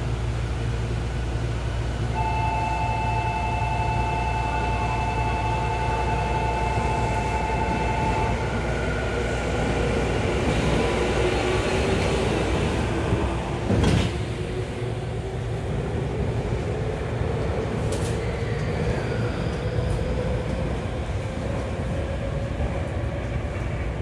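Inside a Tokyu 3000 series commuter train: a steady electronic signal tone holds for about six seconds while the train stands at the platform. About fourteen seconds in, the sliding doors shut with a knock. The train then pulls away, its traction motor whine slowly rising in pitch as it accelerates.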